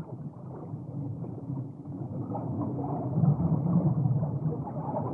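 A low, muffled rumbling noise with no clear tones, swelling about three seconds in and easing off toward the end.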